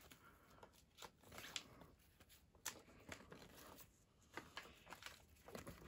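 Faint soft scrapes and flicks of a stack of cardboard trading cards being thumbed through by hand, one card sliding over the next at irregular intervals.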